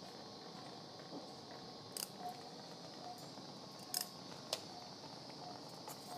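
Three sharp clicks of steel surgical instruments while sutures are tied, over a steady operating-room hum. Soft, short beeps repeat about every three-quarters of a second, typical of an anaesthesia monitor's pulse tone.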